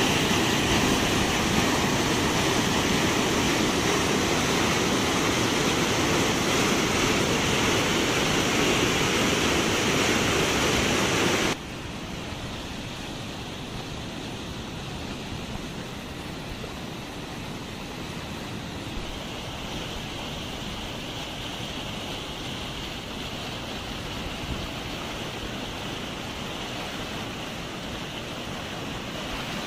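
Muddy floodwater rushing in an overflowing stream, a loud, steady rush of churning water. About eleven seconds in it drops suddenly to a quieter, steady rush.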